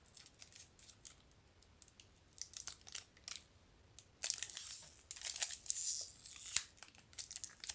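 Plastic packaging of a new liquid eyeliner crinkling and rustling as it is handled: scattered light clicks and rustles at first, then a longer stretch of crinkling from about four seconds in.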